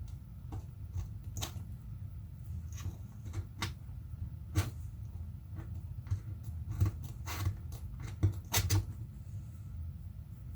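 Scattered light clicks and taps of hands and tools working over an opened MacBook Pro while old battery adhesive is soaked with isopropyl alcohol, with a steady low hum underneath.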